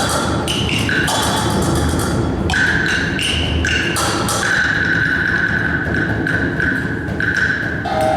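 Live music from tuned percussion: bright ringing notes struck one after another, some let ring for a few seconds, over a busy lower background.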